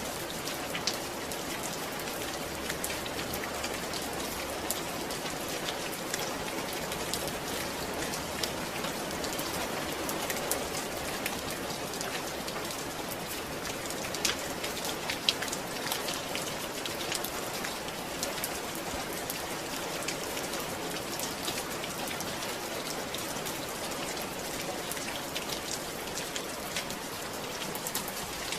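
Steady rain falling and pattering on a surface, with scattered close drop ticks.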